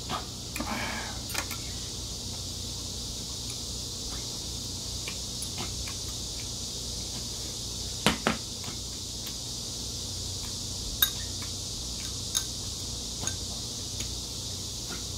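Metal chopsticks clinking against a ceramic bowl and plate during a meal: a few scattered sharp clinks, the loudest about halfway through.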